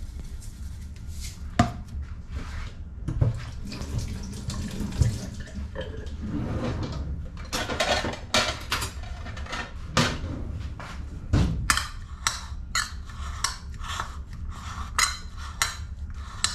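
Scattered knocks and rustling on a countertop, then from about halfway a metal spoon scraping and clinking against a ceramic plate in a quick regular rhythm, about two to three strokes a second, as salted chopped vegetables are mixed.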